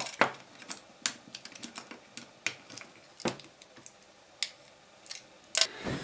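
Irregular small clicks and taps of a plastic pry tool and small parts against an iPod's metal back plate as the headphone jack and hold switch assembly is worked loose, with a louder knock near the end.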